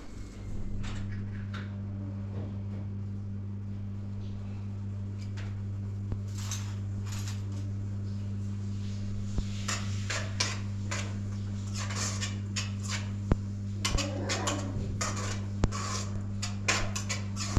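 A steady low hum with scattered clinks and knocks, which grow busier in the second half.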